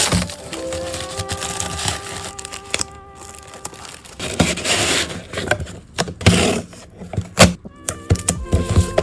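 Parcel packing: paper and plastic wrapping rustling, with sharp clicks and knocks as items and packaging are handled, over light background music.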